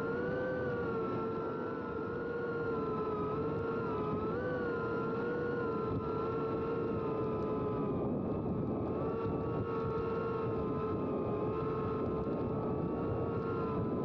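Cinewhoop FPV quadcopter's brushless motors and ducted propellers whining steadily in flight, picked up by the camera on the drone itself. The pitch wavers slightly with the throttle, with a small rise about four seconds in.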